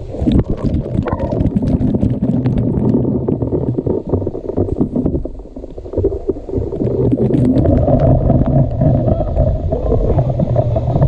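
Waterfall water pouring onto and around the microphone: a loud, muffled rush with many splashes and knocks, easing briefly about midway.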